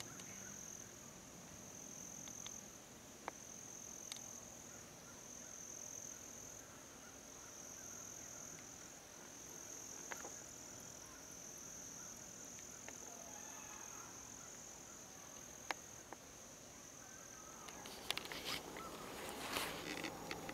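A steady, faint, high-pitched insect chorus of crickets in the surrounding woods. Near the end come rustling and knocks as the camera is handled and brushes against camouflage clothing.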